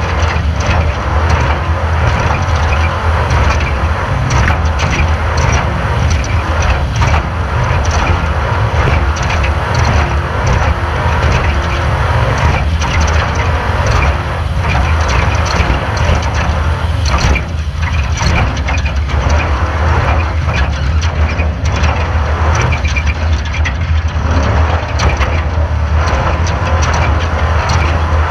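Off-road race car running hard over rough ground. A steady low engine drone sits under constant rattling and knocking from the chassis.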